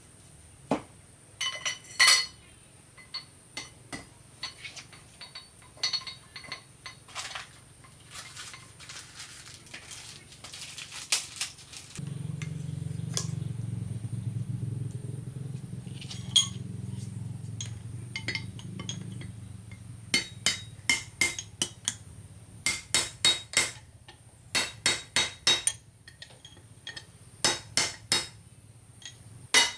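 Metal tools clinking and tapping on metal parts during work on a pickup truck's front-wheel-drive assembly, in scattered knocks and then in quick runs of taps. About halfway through a low hum comes in and slowly fades away.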